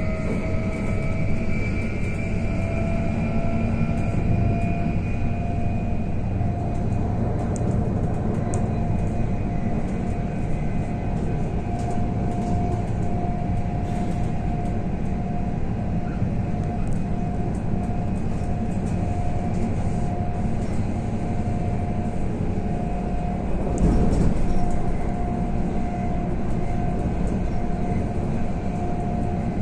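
A moving electric train heard from inside the carriage: a steady rolling rumble with the whine of the electric traction motors, rising slightly in pitch over the first several seconds. There is a short louder rush about 24 seconds in.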